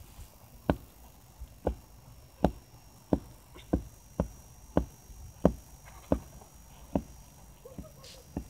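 A series of sharp, short knocks or taps, about eleven of them, coming irregularly at roughly one every two-thirds of a second.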